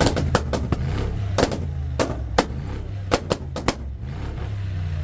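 A tuned sports car's engine coming off a rev and idling, its exhaust firing a string of sharp pops and bangs on the overrun: a quick burst right away, then clusters of cracks over the next four seconds.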